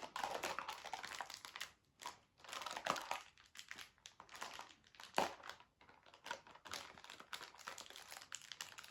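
Plastic snack packet crinkling and rustling in the hands in irregular bursts, with one sharp snap about five seconds in.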